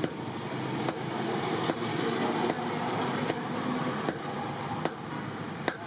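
Hammer blows forging leaf-spring steel, a sharp strike about every 0.8 seconds in a steady rhythm, over a steady rushing background noise.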